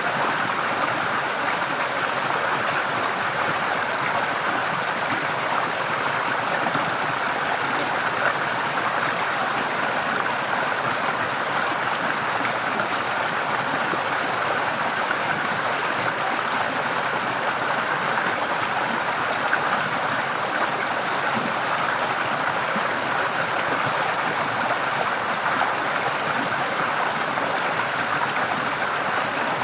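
Forest stream water running and splashing steadily, with no breaks or separate events.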